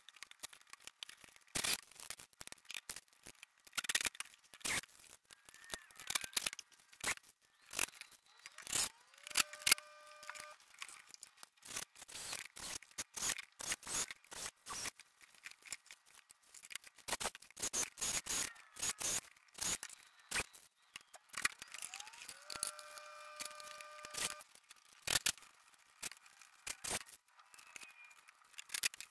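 Plastic hubcaps being handled and knocked about on a workbench: a steady patter of clicks and clacks. A cordless drill whines up to speed and runs for a second or two twice, about nine seconds in and again about twenty-two seconds in.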